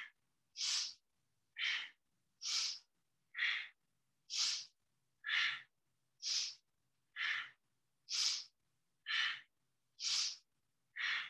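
A woman breathing audibly in a quick, even rhythm, short breaths in and out alternating about once a second each, in time with a chair-yoga arm exercise.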